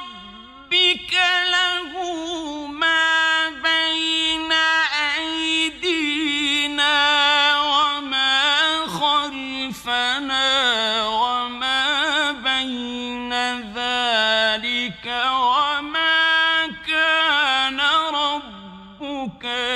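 A male Quran reciter chanting in the melodic tajweed (mujawwad) style: long held notes with ornamented, wavering pitch turns, and short breaks between phrases.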